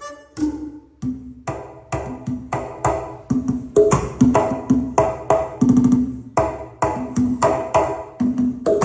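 Music with a fast percussive beat: quick woody clicks and short pitched notes repeating several times a second, starting about half a second in.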